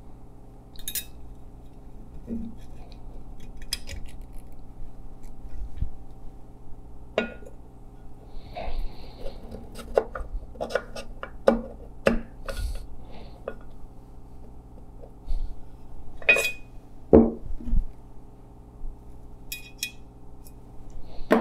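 Irregular light metallic clicks and clinks of a piston ring and piston being handled and set into an aluminium cylinder bore, the piston pushing the ring squarely down the bore for a ring-gap check.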